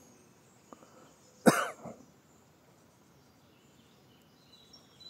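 A man coughs once, loud and sudden, about a second and a half in, with a smaller cough right after.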